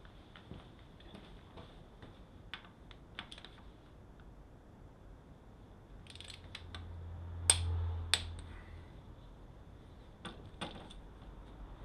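Scattered clicks and light clanks of hand tools, a wrench and a ratchet, working the bolts on a motorcycle's front fork clamps, with two sharper metallic clicks about halfway and a few more near the end.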